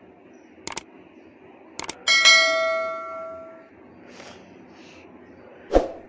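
Subscribe-button sound effects: two quick mouse double clicks about a second apart, then a bright bell ding that rings out for about a second and a half. A sharp thump comes near the end.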